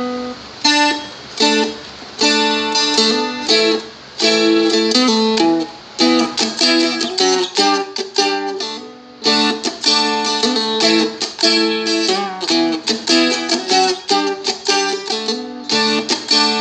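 Seagull Merlin, a small four-string diatonic dulcimer, strummed and picked: barred chords with short note runs between them, quick attacks with ringing notes.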